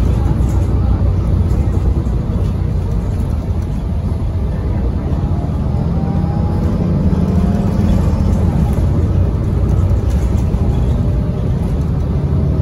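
Steady low engine and road rumble inside a 2017 Gillig BRT transit bus under way, with a faint whine that rises and falls as it changes speed.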